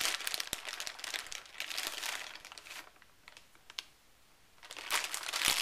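Crinkly rustling, as of something being handled, with scattered sharp clicks; it dies down to a quieter stretch about three seconds in and picks up again near the end.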